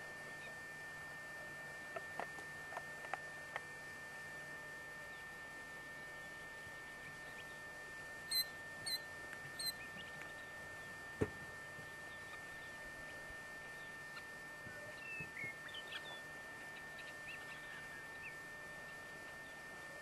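Faint steady hiss with a constant high whine, broken by a few sharp clicks. About fifteen seconds in come a few faint, short, high bird chirps.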